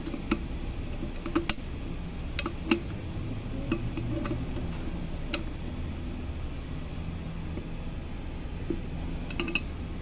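Scattered sharp metallic clicks and taps of a wrench working the bolts that join the wheel hub to the brake rotor as they are tightened, over a steady low hum.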